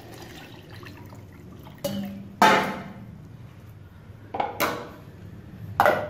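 Water poured into a blender jar, with several sharp clinks and knocks of the jar; the loudest comes a little before halfway.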